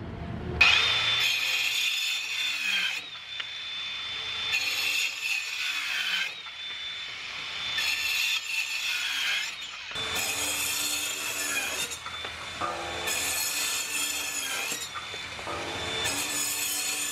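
DeWalt Atomic 20V 4-1/2-inch cordless circular saw cutting through a 2x4. The motor starts about half a second in and runs throughout, its sound rising and easing as the blade bites into the wood in about six stretches of a second or two each.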